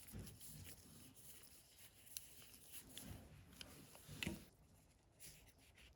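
Near silence, with a few faint scattered clicks and soft knocks, one slightly louder about four seconds in.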